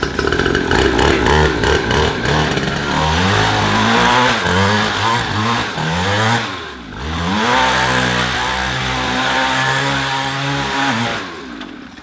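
Mini dirt bike's small engine revving up and down over and over as the bike is spun in tight donuts, dipping briefly about halfway through, holding higher revs, then falling away near the end.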